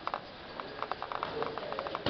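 Boxers sparring: a quick, irregular run of light taps from footwork on the floor and gloved punches landing.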